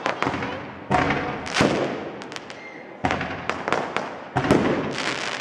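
Aerial fireworks bursting: a rapid string of sharp bangs and pops, with bigger booms about a second in, around three seconds in, and again past four seconds.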